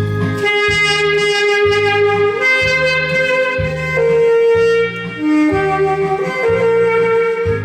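Saxophone playing a melody in long held notes over a recorded backing track with a repeating bass line.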